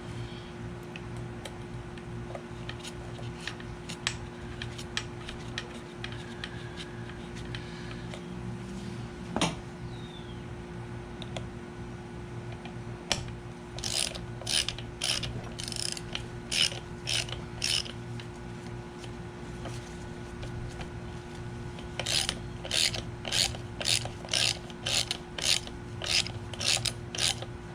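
Ratchet wrench clicking in two runs of quick strokes, about two a second, as bolts are run in snug during reassembly of a Viair air compressor. A steady low hum sits underneath.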